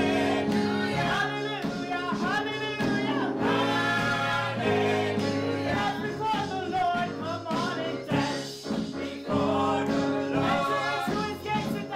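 Gospel praise-and-worship song sung by a small group of voices, a woman leading on a microphone, over sustained instrumental backing.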